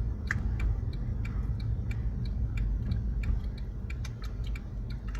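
A car's indicator relay ticking evenly, about three ticks a second, over the low rumble of the car's engine and road noise heard inside the cabin.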